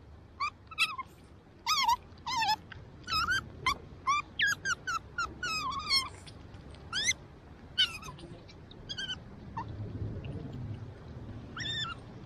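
Asian small-clawed otter giving a string of short, high chirping squeaks, many in quick succession over the first eight seconds, then one more near the end.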